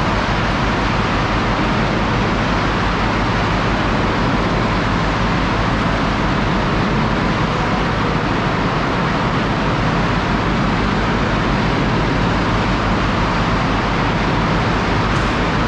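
Steady, loud din of the machinery in a cement plant's bag-loading area, where a conveyor belt feeds cement bags onto a truck, with a continuous low rumble underneath.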